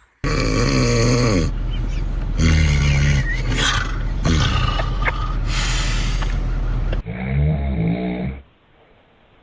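Loud, rasping human snoring: a run of long snores one after another over a steady low hum. About seven seconds in it cuts abruptly to a short, more muffled sound, then goes quiet.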